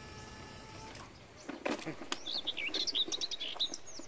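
A small bird singing a fast run of sweeping chirps that starts about halfway in and keeps going. Before it, a faint steady whine cuts off about a second in, and a couple of brief knocks follow.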